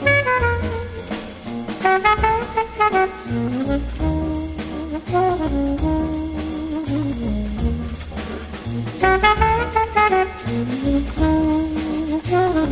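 Background jazz music with a horn carrying a melody that slides up and down over a steady walking bass beat.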